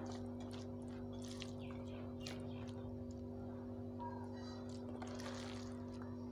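A hand mixing cooked rice with dalma on a steel plate: faint scattered squishing and scraping, over a steady low hum.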